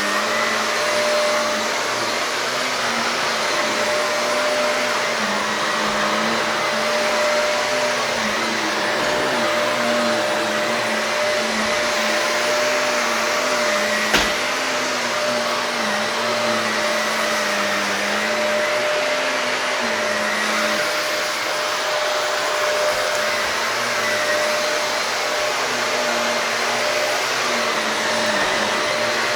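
Shark vacuum cleaner running steadily over carpet, a constant motor whine with a lower hum that wavers slightly as it is pushed back and forth. A single sharp click about halfway through.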